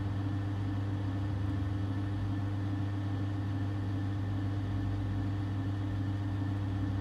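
Electric potter's wheel running at a steady speed: an even, low motor hum while a wet clay cylinder is being pulled up on it.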